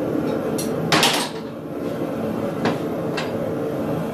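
A forge running with a steady rushing noise. Over it come a loud metallic clank about a second in and a few lighter clicks as hand tools are picked up and handled at the vise.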